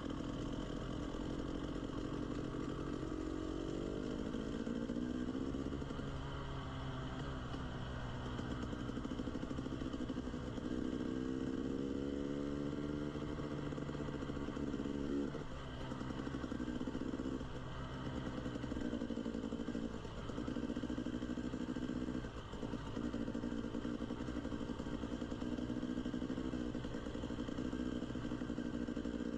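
Dirt bike engine running at low trail speed, its pitch rising and falling as the throttle is rolled on and off, with several brief drops where the throttle is shut in the second half.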